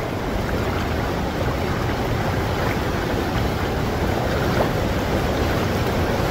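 Shallow seawater rippling and washing over stones at the water's edge, a steady rushing with wind buffeting the microphone.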